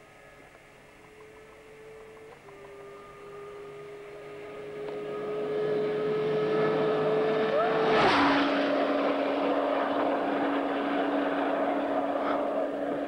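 Kawasaki ZX-12R's inline-four engine running flat out, near its top speed, as the bike flies past. The engine note climbs and grows louder as it approaches, and about eight seconds in it passes with a rush of wind and a sudden drop in pitch. The lower note then fades away.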